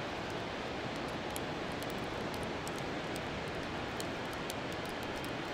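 Steady wash of ocean surf, with faint scattered ticks over it.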